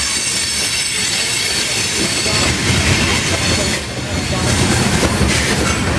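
Covered hopper cars of a freight train rolling past at close range: a continuous rumble and clatter of steel wheels on the rails, growing heavier about two seconds in.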